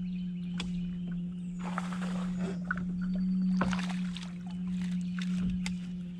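A steady low hum runs throughout. Over it are stretches of water splashing, a few sharp clicks and short high chirps.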